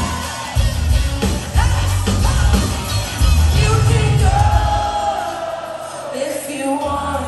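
Live band playing a pop-rock song with a singer, heard from within the crowd, with shouts from the audience mixed in. Drums and bass drive the song until about five seconds in, then drop out, leaving held sung notes over a thinner backing, and a low sustained note comes back near the end.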